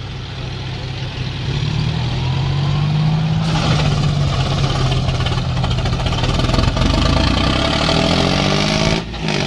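John Deere 5036 D tractors' diesel engines running hard under full load as they pull against each other on a rope. The engine pitch climbs over the first few seconds, holds, and rises again near the end, with a brief drop about nine seconds in.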